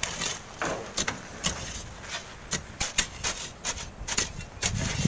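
Shovels and a long steel crowbar digging into packed sand, giving irregular sharp clinks and scrapes about two a second; the crowbar is loosening compacted sand for shovelling.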